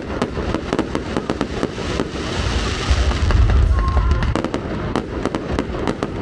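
Fireworks display: a dense string of sharp bangs and crackles over a deep, continuous rumble of bursting shells, with a thicker patch of crackle a couple of seconds in.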